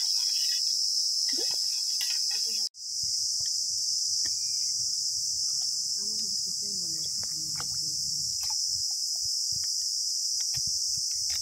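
Steady high-pitched insect chorus of crickets, with scattered light clicks and taps as a steel spoon knocks ice cubes out of a plastic ice-cube tray over a steel bowl. All sound cuts out for a moment a few seconds in.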